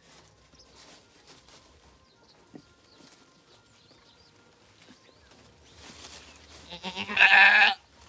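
A goat bleating once near the end: a loud, wavering call about a second long.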